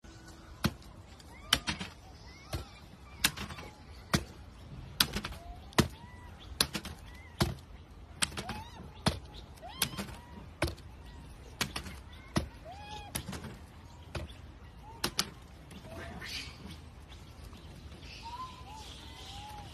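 Sharp knocks of a cup being tapped on stone paving, about one to two a second, stopping about fifteen seconds in. Short high chirps sound between the knocks and carry on after them.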